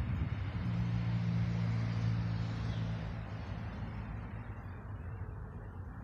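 Low steady engine hum under a rushing noise that fades gradually over several seconds, like a motor vehicle passing and moving away.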